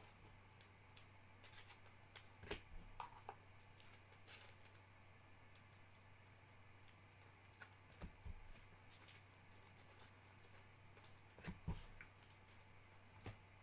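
Faint, scattered clicks and short rustles at irregular intervals over a low steady hum, close to near silence.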